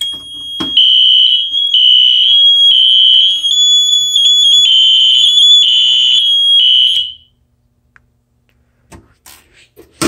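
Fire alarm test going off after a manual pull station is pulled: the Wheelock NS horn strobe sounds a loud, high-pitched steady tone over a horn pulsing about once a second. Both cut off sharply about seven seconds in.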